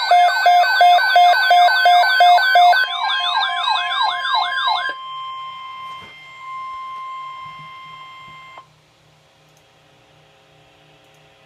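Emergency alert siren: an electronic wail sweeping up and down about three times a second over a pulsing tone, loud for about five seconds. It gives way to a steady alert tone of about 1 kHz, the NOAA Weather Radio warning alarm tone, which cuts off suddenly a little over three seconds later, leaving a faint hum.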